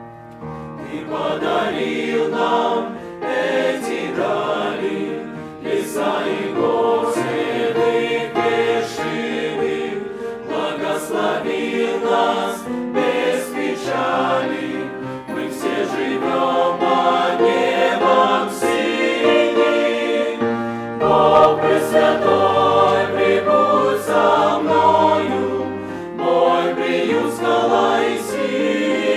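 Mixed choir of men's and women's voices singing a hymn in phrases.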